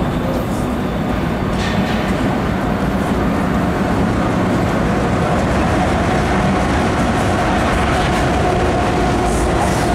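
A lash-up of BNSF GE diesel-electric locomotives running under power as they pull a westbound intermodal train past at close range, getting slightly louder as they come near. A steady whine joins the engine rumble about four seconds in.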